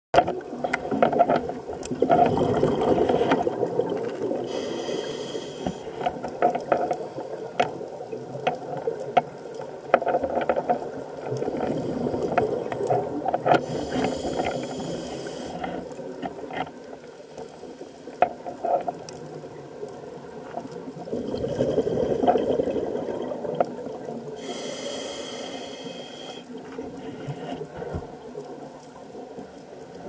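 Scuba diver breathing through a regulator, heard underwater: three breaths, each a bubbling exhalation followed by a short hiss of air drawn through the regulator, with scattered sharp clicks in between.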